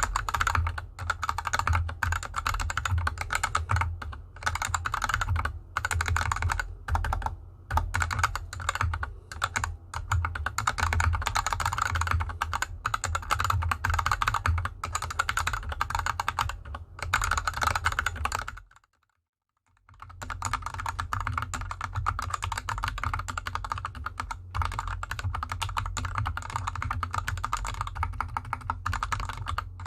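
Continuous fast typing on a GK64X mechanical keyboard with Gateron Yellow linear switches and DSA keycaps, resting on felt fabric. The switches are unlubed at first; after a short silence about two-thirds of the way through, the typing resumes on the same switches lubed with Krytox GPL 205.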